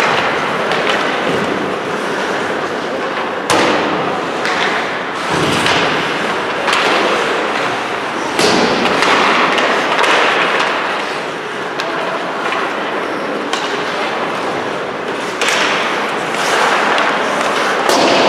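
Ice hockey play on the rink: skates scraping and carving across the ice in repeated swells, with several sharp knocks from sticks and puck.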